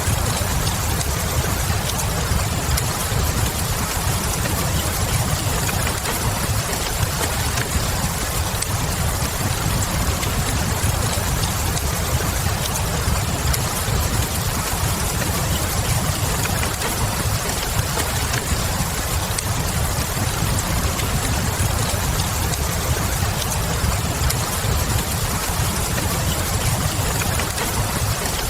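Steady rain with a low rumble beneath it, and now and then a faint crackle of a wood fire.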